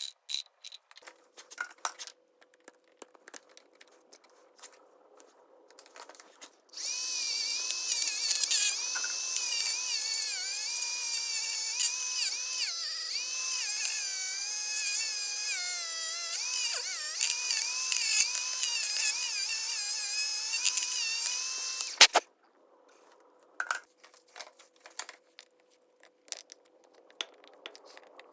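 Electric power drill running continuously for about fifteen seconds, its pitch wavering up and down as the load changes, and stopping with a sharp click. Scattered tool and handling clicks come before and after it.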